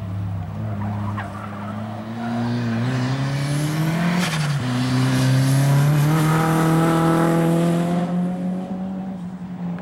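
Nissan S13 Silvia engine revving hard as the car is driven around a track, its pitch climbing, dropping sharply about four seconds in, then climbing and holding, loudest in the second half, with tyres squealing through the hardest part.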